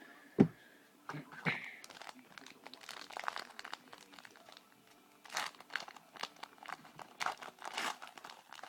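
A single thump about half a second in, then the crinkling and tearing of a trading-card pack wrapper being ripped open and handled, in short irregular crackles.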